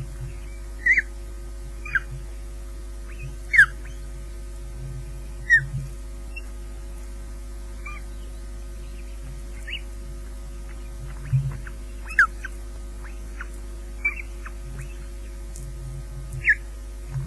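Ospreys at the nest calling: short, falling whistled chirps, about a dozen, coming irregularly every second or two, with a steady electrical hum from the nest-camera audio underneath.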